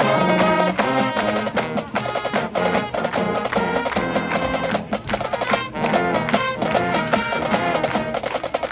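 High school marching band playing: many pitched wind instruments together over rhythmic percussion hits.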